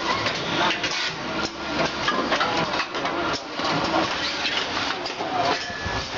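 Vacuum packaging machine running, with a dense, irregular clatter of mechanical clicks and knocks.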